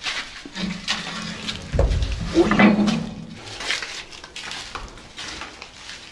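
A rusty steel hatch plate handled by its grip handle: metal clanks and scraping, with a heavy thump about two seconds in.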